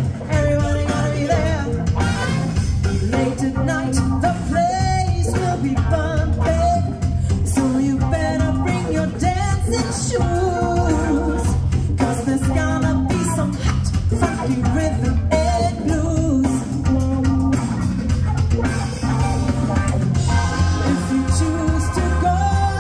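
Live band playing a song with a singer, guitar and drums over a steady beat.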